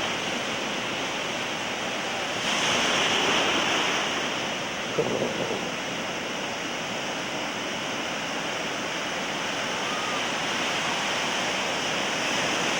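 Ocean surf washing in and out steadily, swelling louder for a second or so about two and a half seconds in as a wave breaks.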